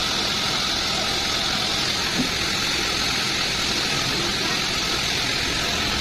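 Homemade band sawmill running steadily, a constant even machine noise with a strong high hiss.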